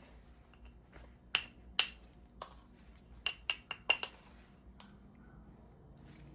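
Flint being knapped: sharp, glassy clicks of a tool working the stone's edge. Two strong clicks come between one and two seconds in, then a quick run of about five between three and four seconds in.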